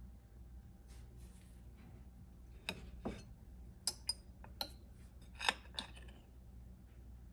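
A ceramic plate set down on a wooden cutting board and a metal spoon clinking against a small jam dish: a series of short, sharp clinks and knocks from about three seconds in, the loudest near five and a half seconds.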